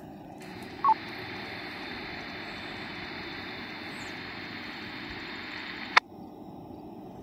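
Steady static hiss from a Baofeng UV-5R handheld's speaker as the repeater's carrier hangs on after the transmission (the repeater's tail), with a short beep about a second in. A sharp click about six seconds in cuts the hiss off as the squelch closes.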